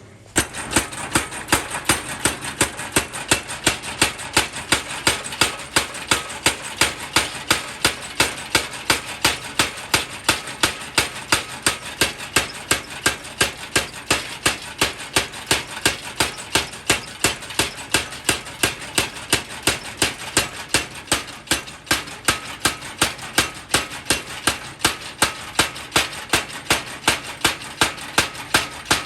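Mechanical power hammer forging steel, striking in a steady rhythm of about two and a half blows a second over the noise of its running motor; it starts abruptly.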